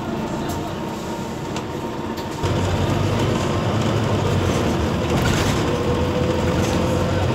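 Cabin noise of a Wright Gemini 2 double-decker bus heard from a passenger seat: a steady engine and road rumble that jumps up about two and a half seconds in as the bus accelerates, with a faint whine slowly rising in pitch near the end.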